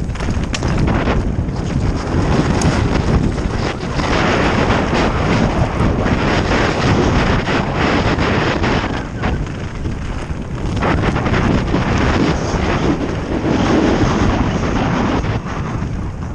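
Wind buffeting the camera microphone over the rumble and rattle of a mountain bike descending rocky singletrack and gravel, with frequent sharp knocks from the tyres and frame hitting stones.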